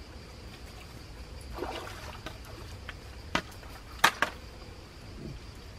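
A short rustle, then three sharp clacks, the loudest about four seconds in, as a plastic kayak paddle is laid down on a pebble beach beside an inflatable canoe. A faint steady high insect hum runs underneath.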